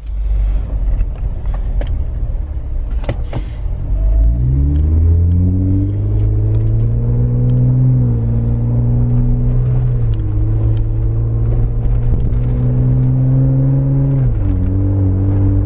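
Jeep Wrangler Unlimited's 3.6-litre V6 through a Magnaflow 15117 Competition Series exhaust, heard from inside the cabin while accelerating. The engine note climbs, drops sharply at a gear change about halfway through, and drops again at another change near the end.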